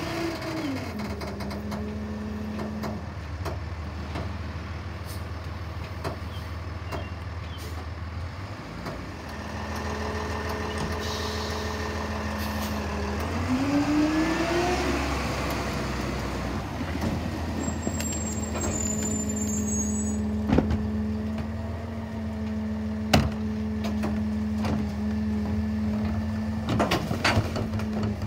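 Peterbilt rear-loader garbage truck's diesel engine running at a steady low hum. Its pitch rises about halfway through as the truck pulls ahead, then settles back to idle. A few sharp metal knocks come in the last third as a cart is tipped into the hopper.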